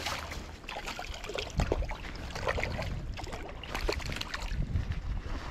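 Creek water running, with irregular small splashes and clicks close by.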